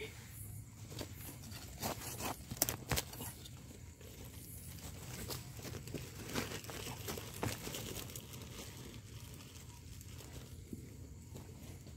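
Dry leaf litter and crumbly soil rustling as termite mushrooms are dug up by hand and with a knife, with scattered clicks and a couple of sharp snaps a little under three seconds in.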